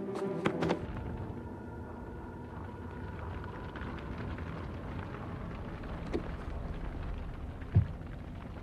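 A low, steady rumble from a film soundtrack, with a few sharp clicks in the first second and a single short thump near the end.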